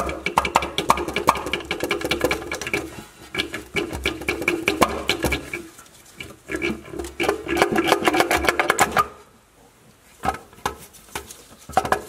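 Ratchet wrench clicking rapidly in three bursts with short pauses, backing out a bolt; the clicking stops about nine seconds in, followed by a few separate clicks.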